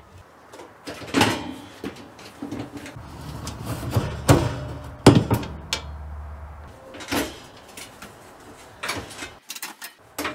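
A few sharp clacks and knocks, a second or more apart: an RV's sliding window being pushed open in its frame, then metal stove parts being lifted off and handled.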